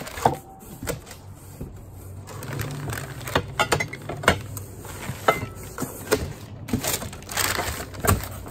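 Glass and crystal dishes clinking against each other in a cardboard box as newspaper-wrapped pieces are lifted out, with newspaper rustling. A handful of sharp clinks and knocks, some ringing briefly. The glassware is packed with little padding between pieces.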